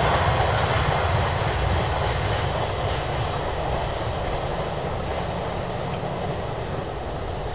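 A steady rumbling, rushing noise, heavy in the low end, that slowly fades away.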